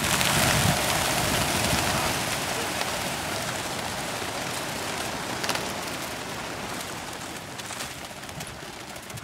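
A large flock of chukar partridges flushing and flying around a netted pen: a dense whirring of many wingbeats that starts suddenly and slowly fades away.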